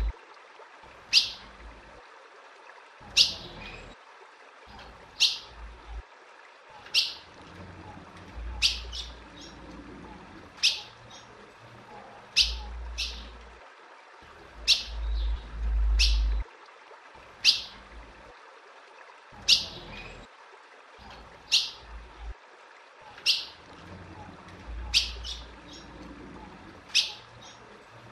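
Female ultramarine grosbeak (azulão) calling over and over: a short, sharp high note about every two seconds, some with a fainter second note after. This repeated female call is the kind breeders play to warm a male up into song and breeding condition. A low rumble comes and goes under the calls.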